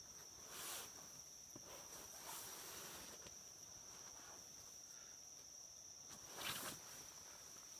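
Insects, crickets or similar, trilling faintly in one steady high unbroken tone, with a few brief soft rustles.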